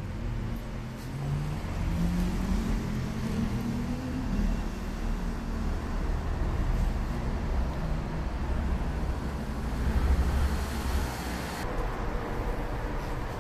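Road traffic noise: a steady rumble with a vehicle's engine rising in pitch over the first few seconds, and a hiss that drops away suddenly near the end.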